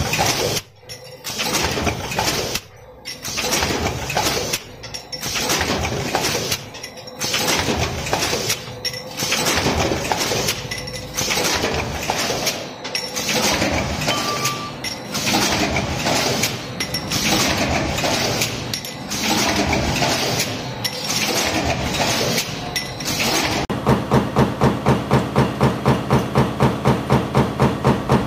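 Metal stamping presses running: a multi-station press die clanks and clatters, dipping briefly about every two seconds as it cycles. Near the end a high-speed press working a progressive die takes over, stamping in a fast, even beat of about four strokes a second.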